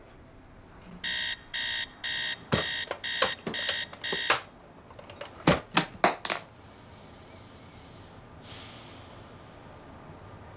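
Electronic alarm clock beeping in quick repeated bursts for about three seconds, starting about a second in and then stopping. About a second later come four sharp knocks.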